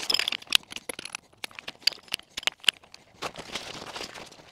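Nylon stuff sack rustling and the poles of a folding camp chair clicking and clacking as the chair is pulled from its bag and unfolded. A quick run of sharp clicks through the first three seconds gives way to a softer fabric rustle.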